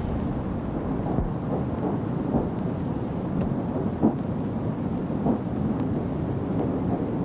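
Steam locomotive hauling a train of coaches: a low, steady rumble with irregular soft beats, the strongest about four seconds in.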